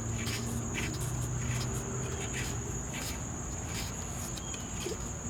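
Crickets trilling in a steady high-pitched tone, with a few faint clicks.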